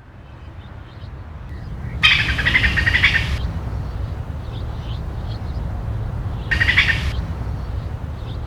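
Wild bird calls: a loud bout of calls about two seconds in and a shorter one about six and a half seconds in, with faint chirps between, over a steady low rumble.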